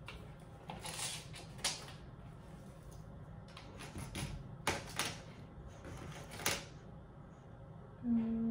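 Steel tape measure handled against a wall while a pencil marks it: a few short clicks and scrapes at irregular moments. Near the end, a short steady low hum.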